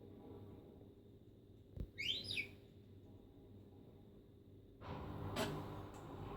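Pet parrot vocalizing: a soft knock, then two quick whistled chirps that glide up and down about two seconds in, and from about five seconds a breathy, hissing noise.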